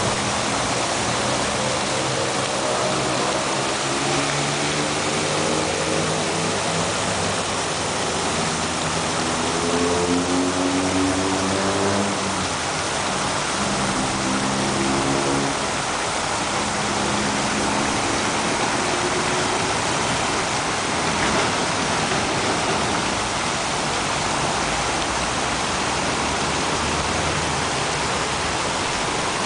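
Arching fountain jets splashing into a pool, a steady rush of water. Over the first twenty seconds a lower engine hum shifts up and down in pitch beneath it.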